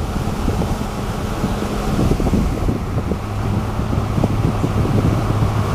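Wind buffeting the microphone over the low, steady hum and rumble of a moving vehicle.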